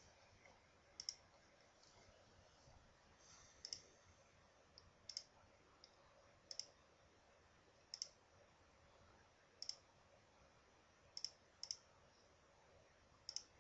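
Computer mouse clicks, single short clicks about every one to two seconds, nine or so in all, each stepping a move forward on an on-screen chess board, over faint room hiss.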